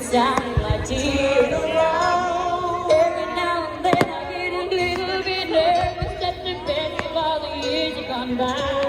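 Pop music with a sung melody playing throughout, with a few fireworks bangs and low thumps over it, the sharpest about four seconds in.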